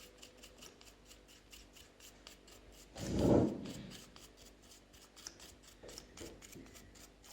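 Small paintbrush bristles brushing dust off a laptop cooling fan and its shaft in rapid, even scratchy strokes, with a short low whoosh about three seconds in.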